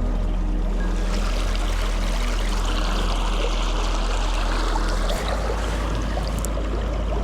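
Steady running water like a stream, with low held tones underneath.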